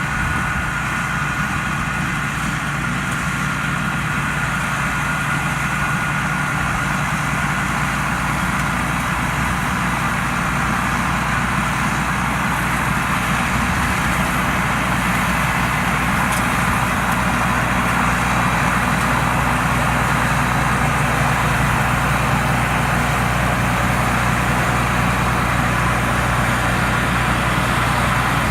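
Thai Seng Yon rice combine harvester running steadily while harvesting: a continuous diesel engine hum under a whirring mechanical hiss, growing slightly louder toward the end.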